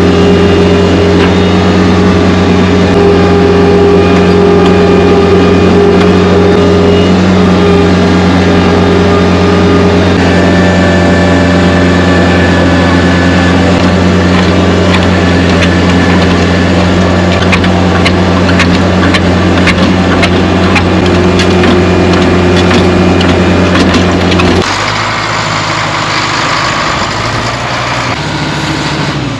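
A heavy machine's engine runs loud and steady at constant speed. A scatter of sharp cracks and crunches comes through in the middle. The steady engine note cuts off suddenly about 25 seconds in.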